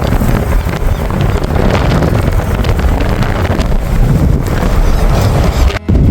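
Wind buffeting the microphone over the low rumble of a moving car, with a brief dropout near the end.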